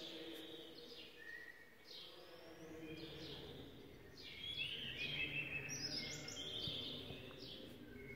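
Small birds chirping, with many short overlapping calls that each sweep down in pitch, over a faint steady background noise.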